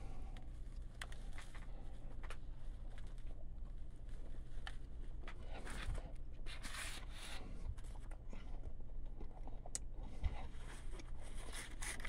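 Close-up chewing of a bite of sausage pizza: soft wet mouth clicks and short scraping rustles, with a low steady hum underneath.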